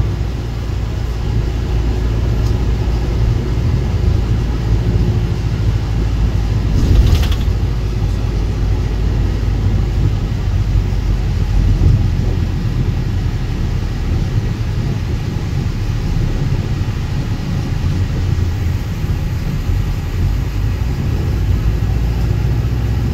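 Steady low rumble of engine and road noise inside a moving tour bus, with a brief hiss about seven seconds in.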